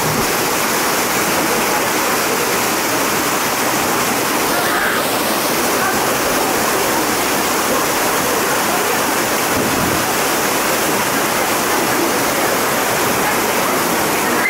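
The Dzhur-Dzhur waterfall pouring: a steady, loud, unbroken rush of falling water.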